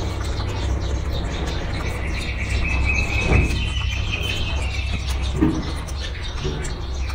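A bird chirping: a high trill lasting about three seconds from about two seconds in, over a steady low rumble.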